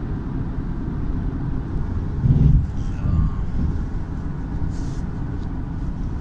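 Steady low road and engine rumble inside the cabin of a car cruising on a highway, with a brief louder low swell about two and a half seconds in.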